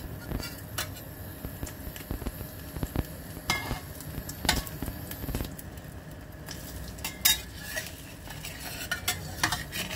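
Egg-coated bread sizzling in oil in a stainless steel frying pan, with a metal spatula and spoon clinking and scraping against the pan several times as the toast is pressed and moved.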